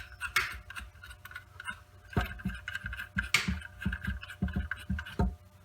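Hands working with wires and small plastic and metal fittings on a circulator pump's electrical connection: irregular light clicks, taps and scrapes, with a few duller knocks.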